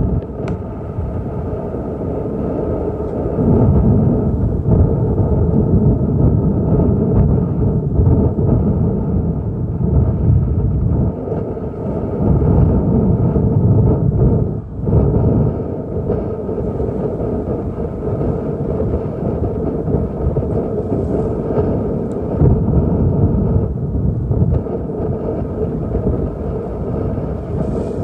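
A fishing boat's motor running with a steady drone, overlaid by irregular low rumbles of wind buffeting the microphone.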